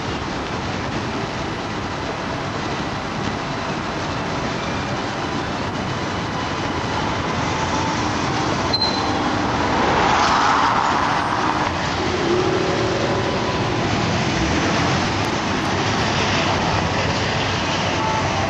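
Street traffic on a wet road: a steady rumble with the hiss of tyres on wet pavement, swelling to its loudest as a vehicle passes close about ten seconds in.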